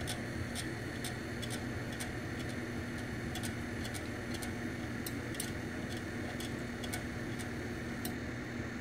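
Monoprice Select Mini 3D printer moving slowly through its home-axis routine: a steady motor and fan hum with light, regular ticks about three times a second.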